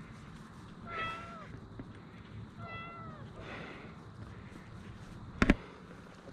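A domestic cat stuck high in a dead tree meowing twice, each meow about half a second long and dropping in pitch at the end. A sharp knock about five seconds in is the loudest sound.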